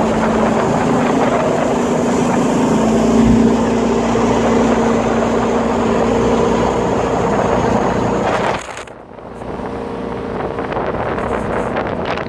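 Jet boat running at speed: a steady engine drone over a rushing noise, with wind on the microphone. About nine seconds in the sound drops sharply and then runs on quieter.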